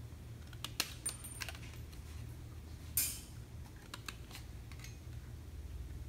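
Yellow-handled straight-cut aviation snips cutting small notches in sheet metal: a series of short sharp metallic snips and clicks, the loudest about three seconds in. A low steady hum runs underneath.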